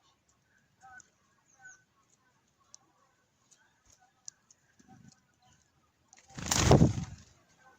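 Small birds chirping faintly off and on. About six seconds in, a loud rush of noise lasting about a second drowns them out.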